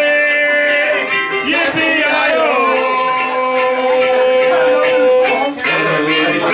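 A man singing long held notes over a strummed ukulele.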